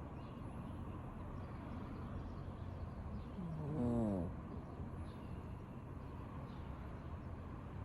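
A sleeping cat snoring: one pitched snore of just under a second about halfway through, part of a slow, regular run of breaths, over steady background hiss.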